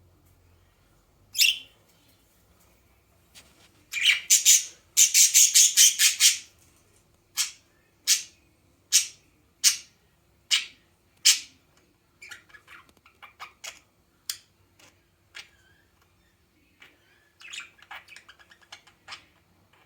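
A bird calling loudly in sharp, high squawks and chirps. A single call comes first, then a rapid run of calls, a string of separate calls a little under a second apart, and softer quick chirps and a trill near the end.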